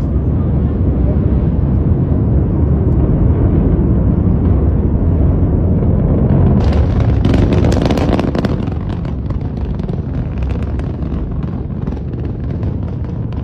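Rocket launch roar: a deep, continuous rumble, with sharp crackling breaking through about seven seconds in and continuing more faintly afterwards.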